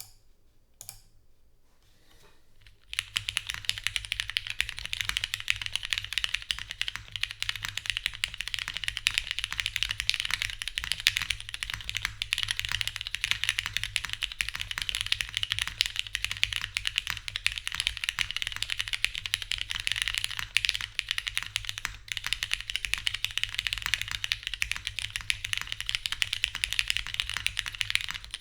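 Continuous typing on a Geonworks F1-8X 722 mechanical keyboard with lubed, filmed retooled Cherry MX Black linear switches, a 1 mm aluminium plate, no foam and GMK keycaps: a dense, steady stream of clacking keystrokes. It starts about three seconds in, after a couple of faint clicks.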